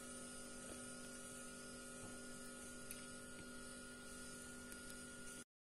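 Faint, steady electrical hum with a few fixed tones and no other distinct sound. It cuts out to total silence just before the end.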